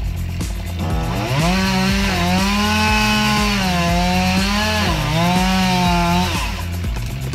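Two-stroke chainsaw running at high revs for about five seconds, its pitch sagging and dipping once before it stops, over background music with a steady beat.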